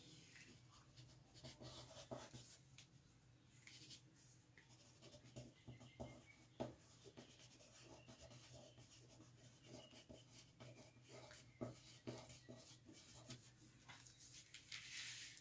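Faint, irregular scratching and tapping of a small paintbrush dabbing paint onto textured mixed-media paper, over a low steady hum.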